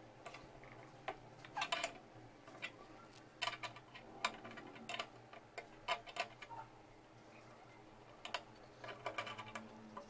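Screwdriver turning the mounting screws of bridge rectifiers on a perforated metal plate: faint, light metallic clicks and scrapes that come in short clusters several times.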